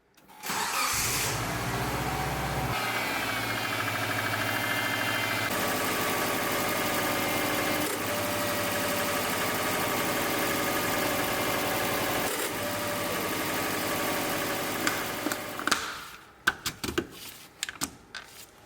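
Car engine starting and running at a steady idle. Near the end it gives way to a few irregular sharp knocks.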